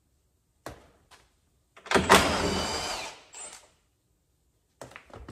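A power drill runs in one burst of about a second and a half, backing out one of the 10 mm bolts that hold the truck's door mirror. A click comes before it and a few light clicks near the end.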